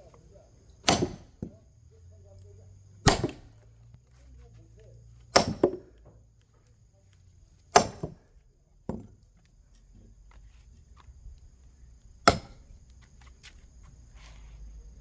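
An axe splitting firewood logs by hand: five loud, sharp chopping strikes into wood, about two seconds apart, some followed by a lighter knock.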